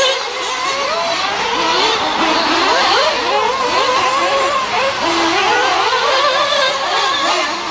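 Several nitro RC cars' small glow-fuel two-stroke engines racing together, a pack of overlapping high whines rising and falling as they rev and back off around the track.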